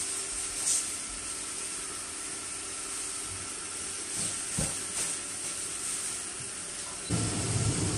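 A steady hiss with a few faint knocks from things being handled; about seven seconds in, a louder low rumbling noise joins it.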